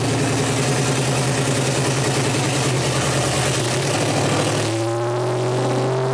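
Supercharged Hemi V8 of a hot-rod pickup running at idle. A little under five seconds in, its note changes and slowly rises as the engine picks up a little speed.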